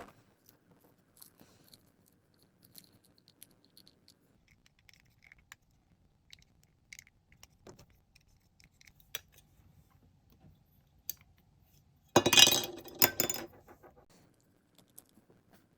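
Small clicks and ticks of plastic model-kit parts being cut and handled, with a louder clatter of plastic pieces lasting about a second, about twelve seconds in.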